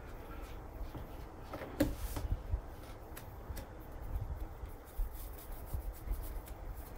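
Faint rustling and handling sounds with scattered light clicks and a sharper knock about two seconds in, over a low background rumble.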